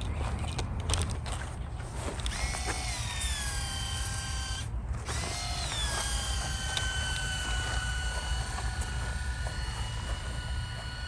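Small motor whining over a low rumble. Its pitch drops about two seconds in, cuts out briefly near the middle, then drops again and holds steady.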